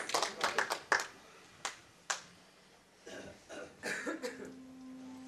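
Audience applause dying away into two or three last scattered claps, followed by soft knocks and rustling of movement. A faint steady low tone comes in near the end.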